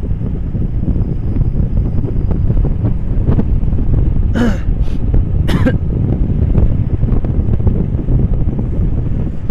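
Steady, heavy low rumble of wind buffeting the microphone, with two brief sharp sounds about halfway through, the first of them pitched like a cough.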